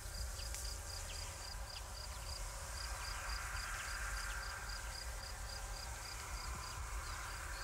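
An insect chirping in a steady high-pitched rhythm, about four pulses a second, like a cricket or bush-cricket in dry summer grass, over a low steady rumble of outdoor background.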